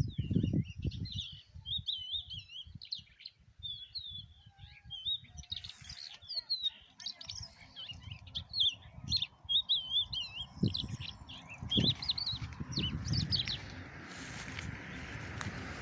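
Small birds chirping and twittering, many short high calls in quick succession, with low rumbling thumps underneath. The calls thin out near the end as a steady hiss sets in.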